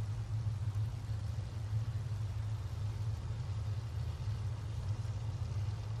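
Supercharged Pro Modified drag cars' engines idling together in a steady low rumble.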